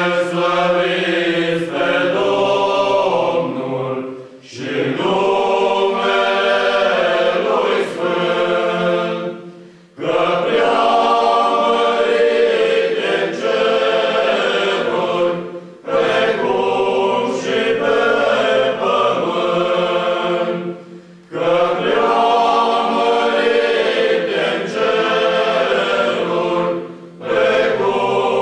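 Men's choir singing unaccompanied, in phrases of about five to six seconds with short breaks for breath between them.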